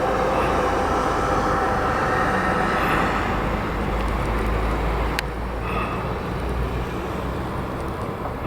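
Aircraft engines running as an airliner passes near the runway, a steady noise with a rumble and a few held tones that fade out partway through. A sharp click about five seconds in.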